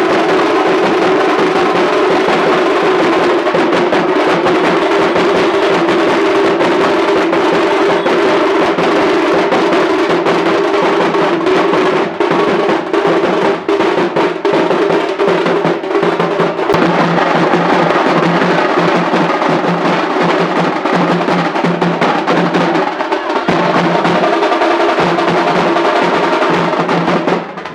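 Loud music with steady drumming and percussion over held tones.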